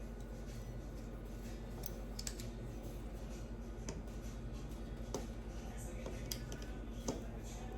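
Scattered light clicks and taps of small tools and metal parts being handled while a compression driver is taken apart, about six in all, over a steady low hum.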